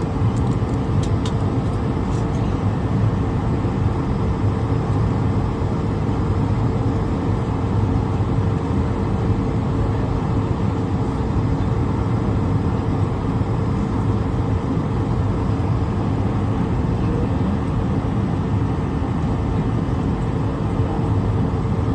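Steady jet engine noise from an Airbus A220-300's Pratt & Whitney geared turbofans, an even, deep rush with a constant hum tone through it.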